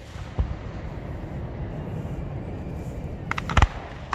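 Aerial fireworks display: a single low boom about half a second in, over a steady low rumble, then a quick run of sharp cracks near the end.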